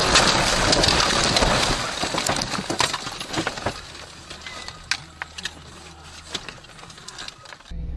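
Car crashing off the road into trees and bushes: a loud crunching crash, the windshield cracking, dying away over the first couple of seconds into scattered clinks and ticks of glass and debris settling, then a quieter low hum.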